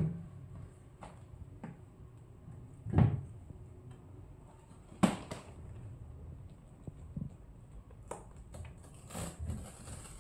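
Scattered knocks and thumps of a wooden cabinet door being moved and climbed on by a small monkey. Two louder thuds come about three and five seconds in, and a run of lighter knocks comes near the end.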